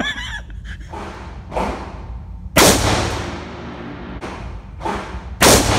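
Two shots from a Chinese Type 56 SKS semi-automatic rifle in 7.62x39, about three seconds apart, each with a long echo off the walls of an indoor range. Fainter bangs fall between them.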